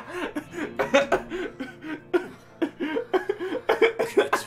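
A man laughing in a long run of short, breathy bursts.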